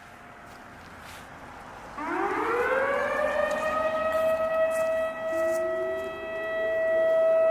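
Whelen WS-3000 electronic outdoor warning siren starting up about two seconds in: its tone slides upward and settles into a loud, steady wail. A fainter second tone rises beneath it near the middle.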